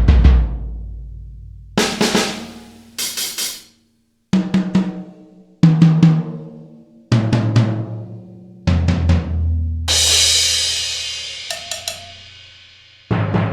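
Sampled acoustic rock drum kit from the EZdrummer 3 Alt-Rock EZX library, played piece by piece: separate groups of hits, each left to ring out, with the drums stepping down in pitch like toms from high to low. A cymbal crash rings out for a couple of seconds about two-thirds of the way through.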